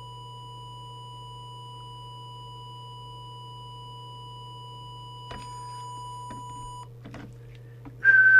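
A steady test tone from an audio oscillator driving the transmitter of a Harvard 402MPA CB radio while its FM deviation preset is trimmed, over a low hum. The tone cuts off about seven seconds in, followed by a few light clicks. Near the end a short, loud steady whistle follows: the whistle test for peak deviation.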